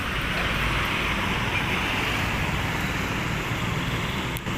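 Steady street traffic noise from passing vehicles, with a brief dropout near the end.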